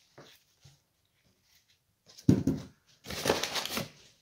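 Potatoes being prepared for the pot: a few light taps, a heavy knock about two seconds in, then about a second of scraping, rattling noise.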